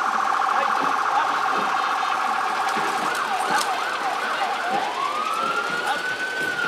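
Emergency vehicle siren running through its patterns: a rapid warble, then quick up-and-down yelps about three seconds in, then a slow wail that rises and begins to fall near the end.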